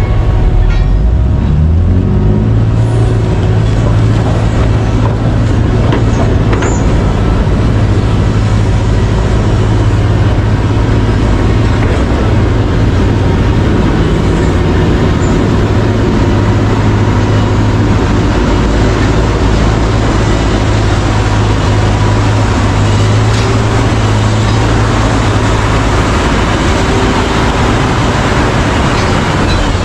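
Large diesel mining machinery running under load: a steady, loud engine drone that rises in pitch about a second in, then holds, with a constant mechanical rumble.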